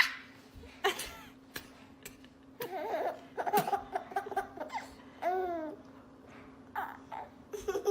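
A baby babbling and laughing in short vocal bursts, opening with a sharp rising squeal. A steady low hum runs underneath.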